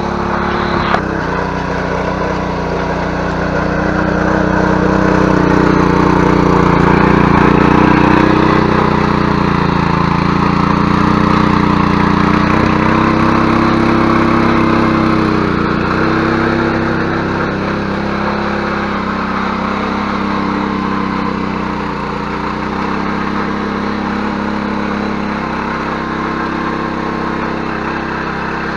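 Ruris 731K motor hoe's engine running under load as its tines churn through soil, a steady drone whose note wavers as the tines dig in. It grows louder from about four seconds in, holds until about fourteen seconds, then eases back a little.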